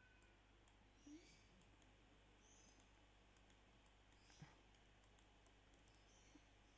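Near silence: faint room tone with a few soft computer mouse clicks, the clearest about a second in and about four and a half seconds in.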